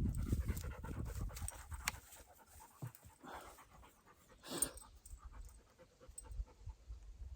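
Black Labrador retriever panting, in short breathy bursts, with a low rumble during the first two seconds.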